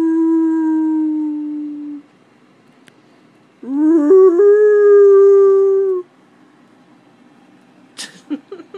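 Basset hound howling: one long, steady howl that ends about two seconds in, then a second howl that rises at its start and holds for about two more seconds. A few short, sharp sounds come near the end.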